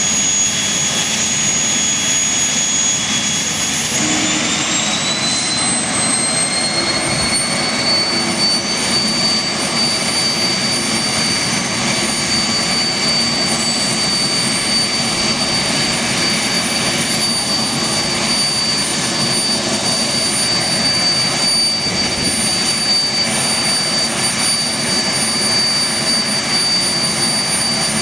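Avro Vulcan's Rolls-Royce Olympus turbojets running on a ground run: a steady loud roar with a high whine that rises in pitch about four seconds in as the engines spool up, then holds. A fainter, higher whistle climbs slowly through the rest.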